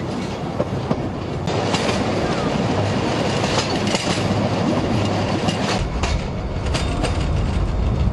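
Narrow-gauge train's wagons rolling along, wheels clattering over the rail joints with scattered sharp clicks. A deeper rumble joins about six seconds in.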